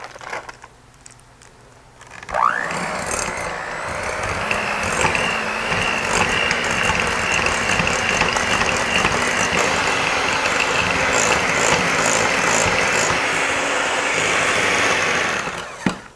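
Electric hand mixer starting with a quick rising whine about two seconds in, then running steadily as its beaters cream softened cream cheese in a bowl, and switching off near the end.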